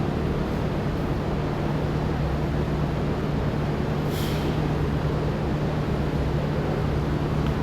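A steady low hum over constant background noise, with a short hiss about four seconds in.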